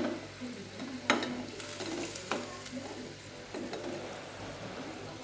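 Metal utensil knocking and scraping against a pan as blocks of curly instant noodles are stirred in boiling water, with several sharp clinks about a second apart, over a steady sizzle of frying.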